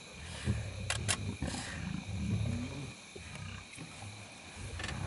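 Lions growling at one another as the pride crowds together, in repeated low growls with short pauses. Two sharp clicks come about a second in.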